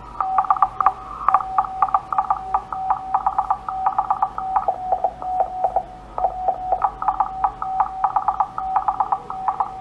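Morse code (CW) signal from an amateur radio transceiver's speaker: a steady beeping tone keyed on and off in dots and dashes, with a second, higher keyed tone sounding among it.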